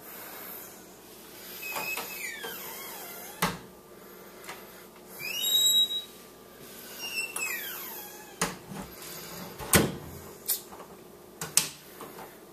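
A door creaking on its hinges in drawn-out squeals that slide down in pitch, with several sharp knocks in between, the loudest about ten seconds in.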